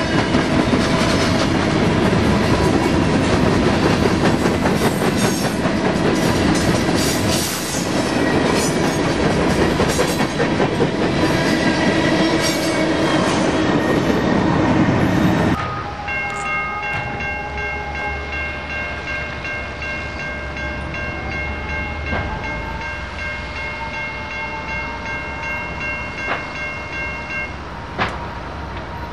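Freight train cars rolling past close by, a dense rumble with wheel clatter over the rail joints, for about the first half. It then cuts abruptly to a much quieter stretch with a steady high chord of three tones held for several seconds.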